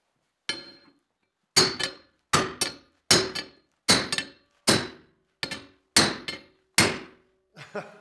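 Hammer blows on a steel angle-iron clip welded to a pipe held in a vise. A lighter first strike is followed by about eight hard, ringing metal-on-metal blows, roughly three-quarters of a second apart, each with a quick rebound knock. This is a destructive clip test of a MIG weld: the angle iron bends under the blows while the weld holds.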